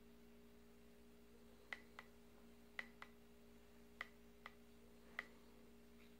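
Faint clicks of a vape mod's fire button pressed and released, three quick pairs and then a single click, as freshly built kanthal coils are pulsed to heat them.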